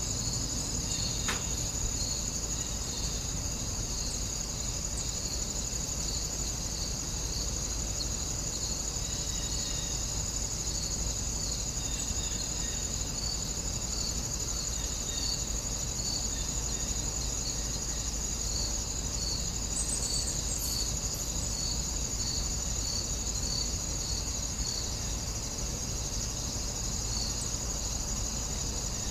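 A steady chorus of insects shrilling, with a chirp repeating about once a second over the continuous high buzz, above a low steady rumble.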